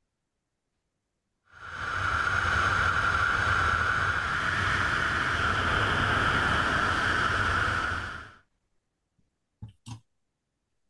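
Steady rushing air noise of a wingsuit flight, fading in about a second and a half in and fading out a couple of seconds before the end, followed by two brief clicks.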